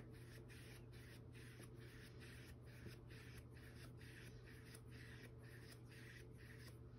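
Near silence: faint room tone with a low steady hum, and a tiny tick right at the start and another about three seconds in.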